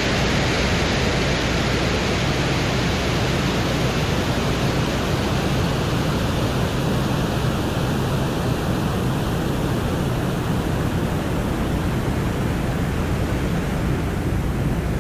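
Steady, even rushing noise from a spacecraft recording presented as the sound of Venus, with no distinct events or tones.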